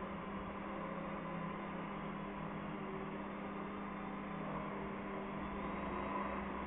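Electric motor and propeller of an indoor foam aerobatic model plane running steadily while the plane hovers nose-up, a steady hum.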